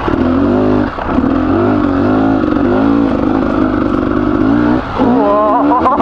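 Beta 300RR freshly rebuilt two-stroke enduro engine, ridden on and off the throttle, revs rising and falling. Revs drop briefly about a second in and again near five seconds, then climb steeply near the end.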